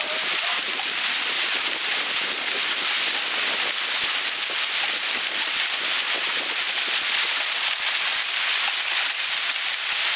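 Heavy rain pouring down steadily, a dense hiss of drops striking nearby surfaces.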